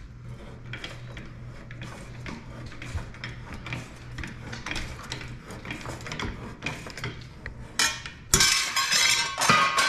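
Bench-mounted hand-lever sheet metal shear cutting thin sheet steel: a run of sharp metallic snips and clicks, about one or two a second, as the lever is pumped, over a steady low hum. Near the end a much louder metallic clatter and scrape of the sheet metal.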